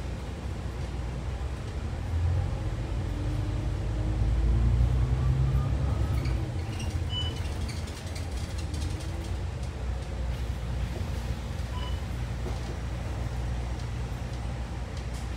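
City bus running, heard from inside: a steady low engine and road rumble that swells with a faint rising whine as the bus pulls away a few seconds in, then settles back to a steady run.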